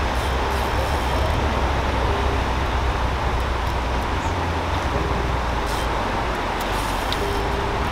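Steady rushing noise of water pouring through a dam into the river below, with a few faint ticks over it.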